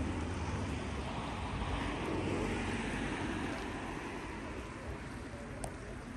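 A vehicle passing, its road noise swelling a second or two in and then slowly fading.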